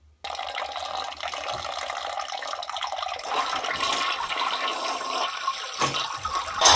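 Toilet flushing and water rushing behind a closed bathroom door, growing louder partway through, with a sharp click near the end as the door is opened.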